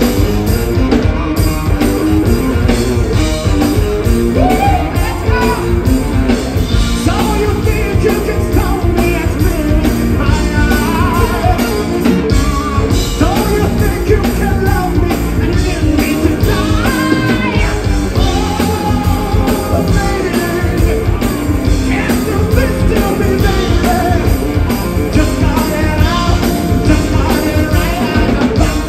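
Live band playing an upbeat song, with drums and bass guitar under a man's lead singing on a handheld microphone; the voice comes in about four seconds in.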